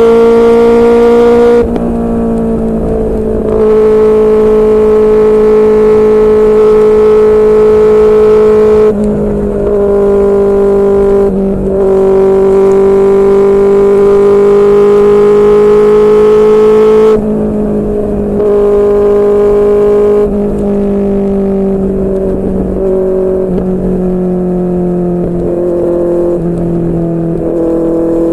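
QJMotor SRK600 inline-four motorcycle engine through a Yoshimura R11 exhaust, running under load at a fairly steady pitch while riding. The throttle is eased off briefly several times, each time the note drops and dulls for a moment, with low rushing noise underneath.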